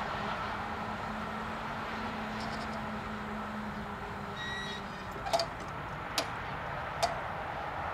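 Level crossing barrier arms rising, with a steady hum from the drive that stops about halfway through. Three sharp clicks follow, just under a second apart.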